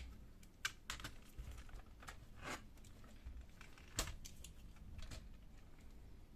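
Scattered light clicks and taps of laptop parts being handled as the main board is worked loose, with a short scrape about two and a half seconds in. The sharpest clicks come right at the start and about four seconds in.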